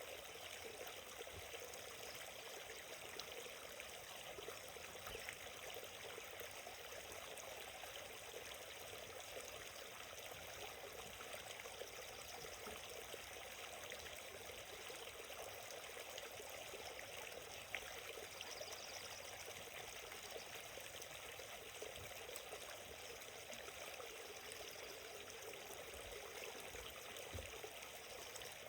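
Small forest stream flowing steadily, a continuous gentle rush and trickle of water.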